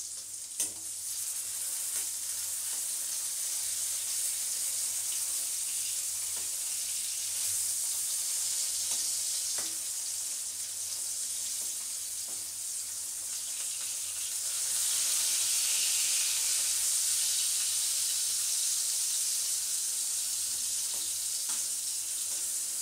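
Pointed gourd slices sizzling in hot oil in a metal kadai, with a few light clicks of a metal spatula turning them against the pan. The sizzle grows louder for a few seconds past the middle.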